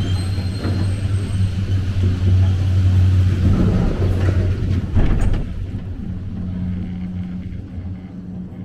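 Chairlift terminal drive machinery running with a steady low hum, with a clunk about five seconds in as the chair moves out along the cable; the hum is quieter after that.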